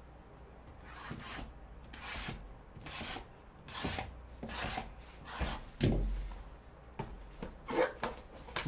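Shrink-wrapped cardboard trading-card boxes sliding and rubbing against each other as one is pulled from a stack and handled in gloved hands, in a string of irregular scraping strokes. A dull bump comes about six seconds in.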